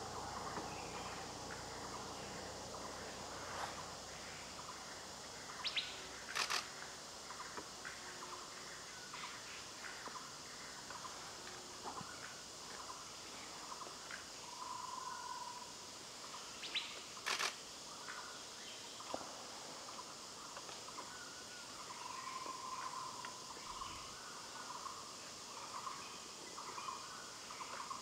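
Forest birds chirping and calling over a steady high insect drone. Two pairs of sharp, very high notes stand out, and a couple of short held notes sit lower down.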